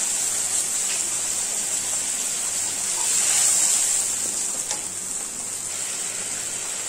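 Onions and spice paste sizzling as they fry in oil in a pan: a steady hiss that swells a little about three seconds in, with a faint click near five seconds.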